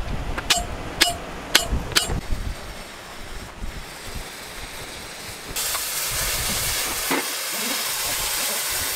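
A hammer striking a hand punch on a steel pipe four times, marking the cut line, in the first two seconds. Then an oxy-fuel cutting torch hisses as it cuts the pipe, the hiss growing louder and steady from a little past halfway.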